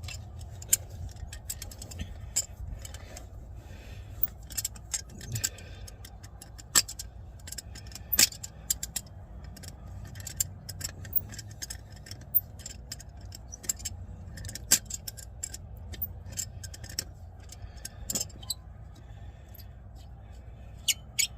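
Irregular metal clicks and clinks of pliers and a pipe wrench working a rusted, seized threaded part on a drum brake, turning it out a little at a time.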